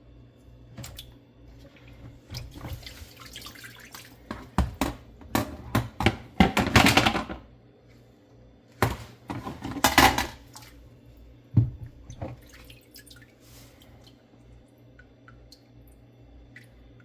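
Water sloshing and dripping, with louder splashing twice, in the middle and about two-thirds through, amid scattered knocks and clatter.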